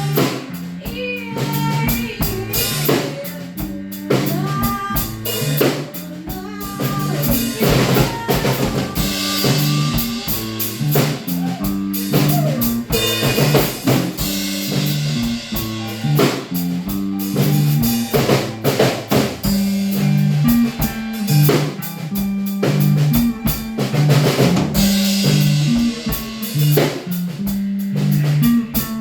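Band music: a drum kit playing a steady beat of snare, kick and rimshots under a low note line that moves in steps.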